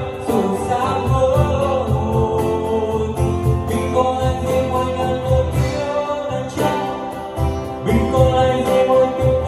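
Song with singing and a steady bass beat, played back through a P.audio PA loudspeaker system.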